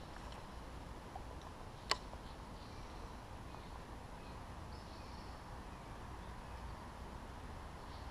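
Faint steady outdoor background noise with a single sharp click about two seconds in.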